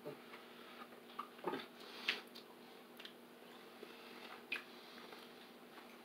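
Faint clicks and taps from small objects being handled, about half a dozen scattered through, the sharpest about two seconds in, over a faint steady hum.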